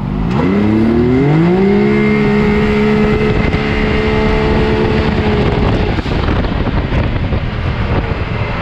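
Can-Am Maverick X3's big-turbo three-cylinder engine at full throttle from a standing launch, heard from the cab. The revs climb quickly over the first two seconds, then hold at one steady pitch as the CVT lets speed build, and the tone breaks up about six seconds in. The driver feels the engine is over-revving here, running past its power band.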